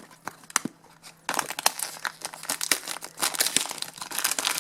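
Blind-bag wrapper crinkling and tearing as it is handled and opened. A few faint rustles at first, then steady crackling from about a second in.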